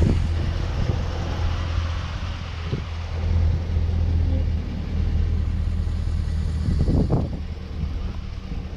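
A Ram 1500's 5.7-litre Hemi V8 idling steadily, with a couple of brief knocks.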